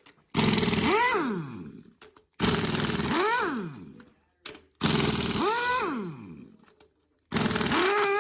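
Cordless impact wrench run in four bursts on the engine's bolts, each starting suddenly with a hammering rattle and a motor whine that rises then falls as it fades; a short click comes before each burst.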